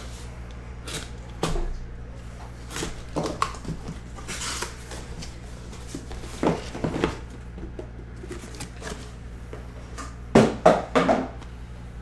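A cardboard shipping case is opened and handled, giving scattered scrapes and knocks with a rustling slide about four seconds in. Near the end comes a quick run of loud knocks as the shrink-wrapped card boxes are set down and stacked. A steady low hum sits underneath.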